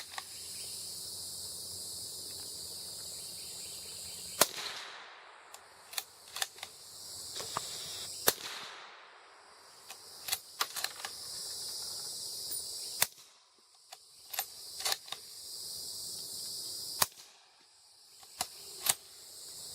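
Four suppressed gunshots about four seconds apart, fired through a Coastal Gun LRT direct-thread chrome-moly suppressor: the first two rounds supersonic, each shot followed by a brief trailing echo, the last two subsonic. Fainter clicks come between the shots, and insects chirr steadily throughout.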